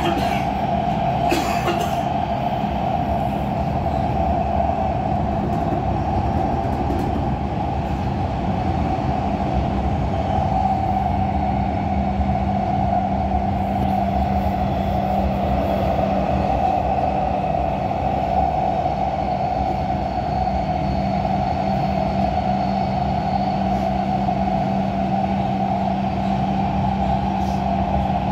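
Warsaw Metro train running steadily, heard from inside the passenger car: a constant rumble with a steady low hum and a ringing tone above it.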